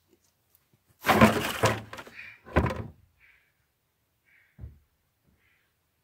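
A hay bale being heaved into a pickup truck bed and onto another bale: a loud thump with rustling hay about a second in, a second thump about two and a half seconds in, and a softer thud later.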